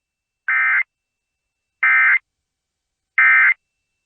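Emergency Alert System end-of-message code: three short, identical two-tone digital data bursts about a second and a half apart, with silence between. This is the SAME EOM ("NNNN") signal that closes the alert.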